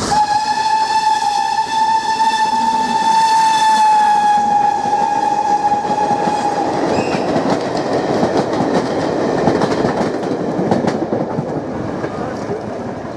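BR 9F 2-10-0 steam locomotive sounding one long whistle blast of about seven seconds as it comes through, the pitch sagging slightly as it ends. Its train of vans then rumbles past, with wheels clicking over the rail joints, and the noise fades near the end.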